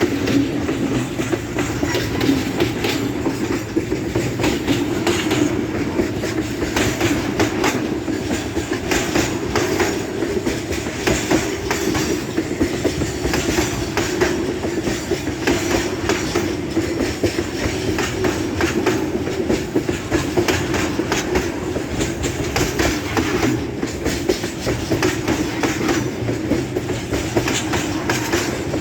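Freight train loaded with soybeans passing on a heavy upgrade: wagon wheels clicking over the rail joints over a steady running noise of the train.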